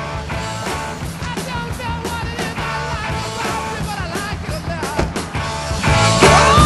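Rock music with a steady beat and bass line; it gets louder near the end.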